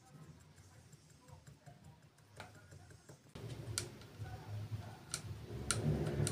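A loose landing-gear joint on a DJI Inspire 1 clicking as it is moved by hand, four sharp irregular clicks over a low hum: the screw holding the arm's guide bar has worked loose. The first few seconds are near silence.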